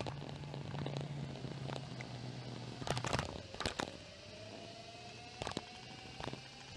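Electric inline skates with four hub motors, running under power: a low steady hum at first, then a whine that rises slowly in pitch as they gather speed, with a few sharp clicks in between.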